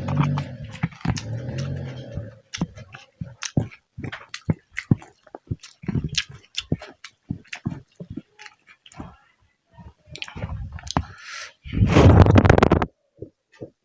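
Close-up chewing: irregular wet clicks and crunches of food being chewed in the mouth, with a louder, denser stretch of crunching about twelve seconds in.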